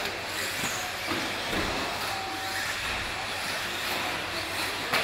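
Radio-controlled 1/10-scale 2WD electric buggies racing on a dirt track: a steady hiss of motors and tyres, with a short whine a little past two seconds in. A brief sharp knock comes at the very end.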